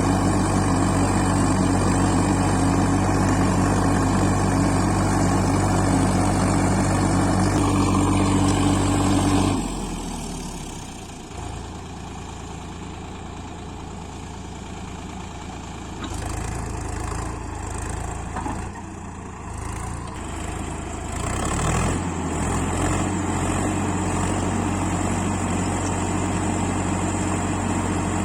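Heavy vehicle engine running steadily with a low, even hum; about a third of the way in it drops away to a quieter, unsteady sound, then a steady engine hum returns near the end.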